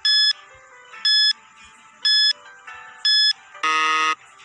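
Countdown-timer sound effect: four short electronic beeps, one a second, followed by a longer, louder buzzer tone lasting about half a second that marks time up. Faint background music underneath.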